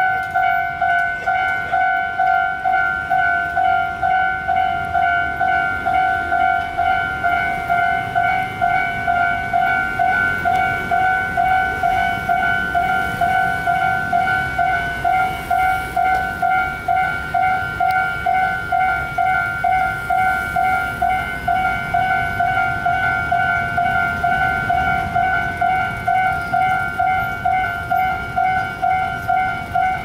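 Railway level-crossing warning bell ringing: an electronic ding repeating evenly about two and a half times a second, sounding with the crossing barriers down to warn of an approaching train.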